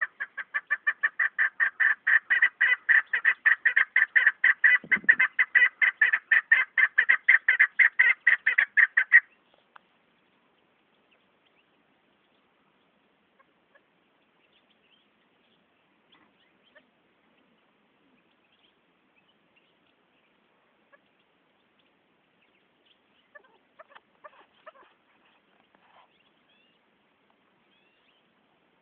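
Chukar partridge calling: a fast run of sharp repeated chuk notes, about five a second, that stops abruptly about nine seconds in. After that there are only a few faint small noises.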